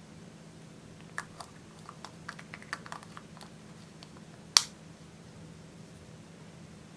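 Small plastic clicks and taps from a Lip Smacker Minnie Mouse lip balm being handled, then one sharp snap about four and a half seconds in as its Minnie-head cap is pressed back on.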